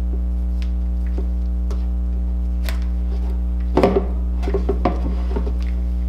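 Steady electrical hum, with small clicks as the doll's neck string is knotted. About four seconds in there is a short clatter of knocks and rustling as the vinyl-and-cloth doll is shifted on a wooden countertop.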